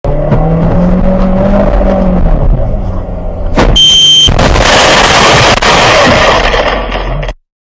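A car's engine running and revving, then a sharp crash about three and a half seconds in as the car smashes through a plate-glass shop front, with a brief high beep, followed by about three seconds of loud shattering glass and debris that cuts off suddenly.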